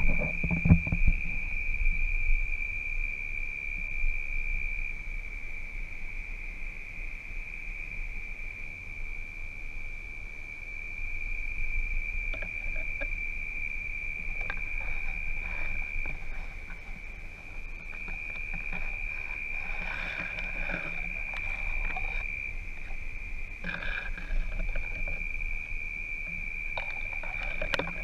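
Steady high-pitched chorus of night insects, running unbroken, with a few knocks of camera handling in the first second and short bouts of rustling later on.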